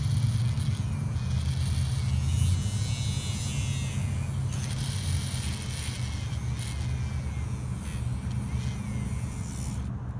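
Small battery-powered DC motor of a homemade gear gadget running with a steady low hum.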